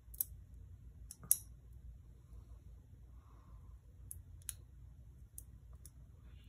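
Small metal parts of a Sig Sauer P365 XL's fire-control unit clicking against each other as they are handled and fitted by hand: about seven scattered light clicks, the sharpest just over a second in.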